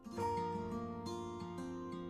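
Background music: a gentle instrumental with plucked-string notes, a new phrase beginning just after the start.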